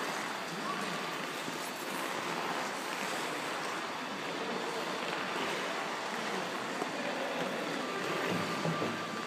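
Steady hiss of ice skate blades gliding and scraping over rink ice, with the hollow background noise of an indoor ice rink.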